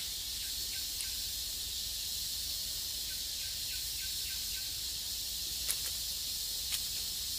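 Woodland ambience: a steady high-pitched insect drone, with faint short bird chirps every so often and two sharp clicks near the end.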